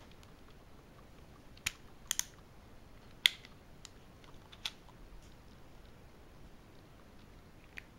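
Sharp metal clicks, about six spaced over a few seconds, from a Colt Single Action Army replica 4.5 mm CO2 air revolver being handled, its hammer and cylinder mechanism clicking.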